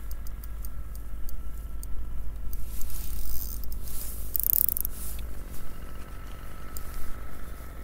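Spinning reel being cranked while a hooked crappie is played to the side of a kayak, with scattered small clicks and two short hissy scrapes in the middle. Steady low wind rumble on the microphone and a faint steady high whine run underneath.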